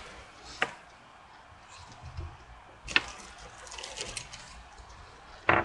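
Small handling noises of a plastic zip-lock parts bag and small parts: three sharp clicks, the loudest about three seconds in and a thicker knock near the end, with light plastic crinkling in between.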